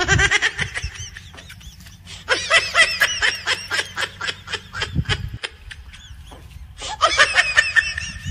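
Laughter in three bursts of quick, repeated 'ha-ha' pulses: one at the start, a longer one from about two seconds in, and one near the end.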